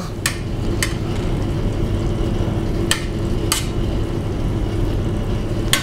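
About five sharp clicks of a metal utensil tapping the steel tray and slate board as fish fillets are set down, spread out over a steady low background hum.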